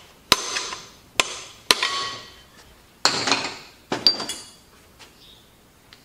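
Hammer blows on the hub of a Bandit 1890XP chipper's twin-disc clutch, tapping it onto its shaft: about six sharp, irregularly spaced strikes over four seconds, each ringing briefly like steel.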